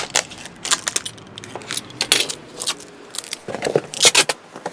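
Irregular rustling and sharp light clicks and clinks of a packing box and its wrapping being handled, with a quick cluster of them near the end.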